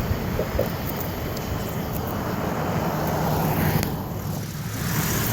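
Road traffic passing on a city street. One vehicle swells up and goes by close about three and a half seconds in, and the noise drops off sharply just after.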